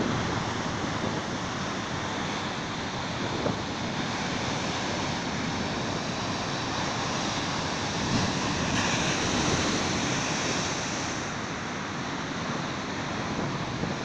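Heavy Atlantic surf breaking against a rocky shoreline: a continuous rush of churning white water. About eight seconds in, a bigger wave crashes into the rocks and throws up spray, and the hiss grows louder for a few seconds.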